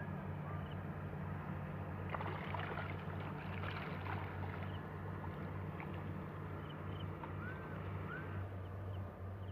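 Steady low hum with a few short, high chirps like small birds calling, and some faint clicking and rustling about two to four seconds in.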